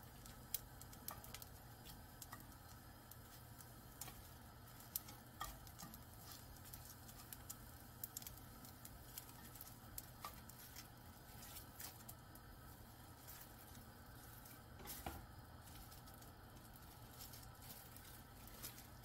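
Faint, irregular crackles and clicks from oil-brushed laver (gim) sheets toasting in a dry frying pan and being turned and lifted with wooden chopsticks, with a small cluster of clicks about 15 seconds in.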